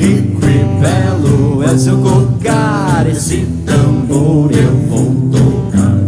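A band playing a children's song: acoustic guitar, a steady drum beat and a singing voice.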